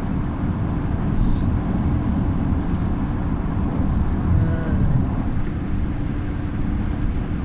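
Steady low rumble of a moving vehicle, road and engine noise running evenly.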